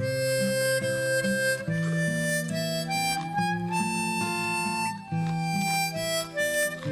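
Background music: a harmonica playing a melody of held notes that climbs to a high note mid-way and falls back, over a low steady accompaniment.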